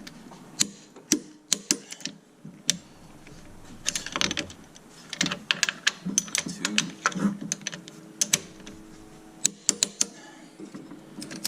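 Torque wrench on engine mount bolts: sharp metallic clicks in several scattered clusters with short pauses between, as each bolt is rechecked at the set torque.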